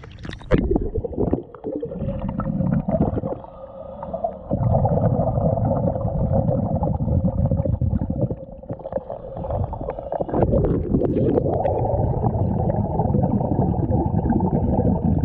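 Scuba regulator breathing heard underwater: long bursts of exhaled bubbles, one starting about four seconds in and another from about ten seconds in, after some splashing at the start as the diver goes under.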